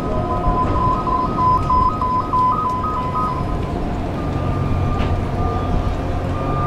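Electronic warning beeper alternating between two pitches in quick steps, stopping about three and a half seconds in, over the steady noise of city street traffic. A low vehicle engine hum swells near the end.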